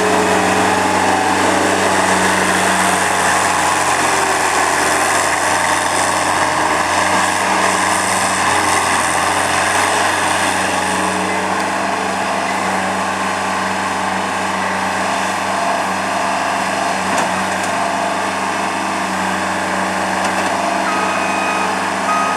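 Thomas 1700 skid steer's engine running steadily, a little quieter in its second half.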